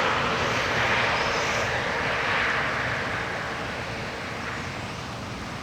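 A passing vehicle's noise fading steadily away, over the rush of river water.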